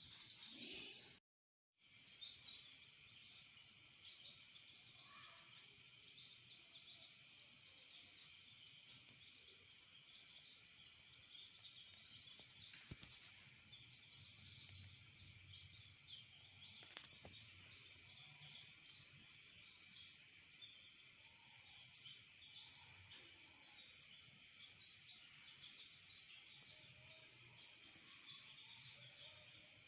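Faint, continuous cheeping of a roomful of chicks about five to six days old, many small peeps overlapping over a steady hiss. The sound cuts out completely for a moment about a second in.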